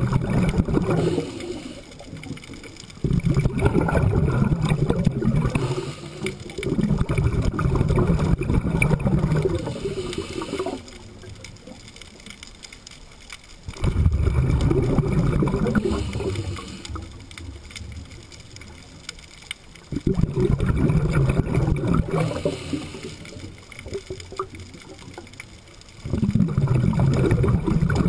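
Diver's scuba regulator exhaling, each breath a burst of bubbling rushing past the microphone, about every five or six seconds, with quieter pauses between breaths while the diver inhales.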